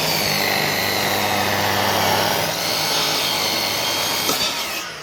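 Electric drop saw cutting into a timber sleeper. The motor runs steadily under load, and near the end it is let go and begins to spin down.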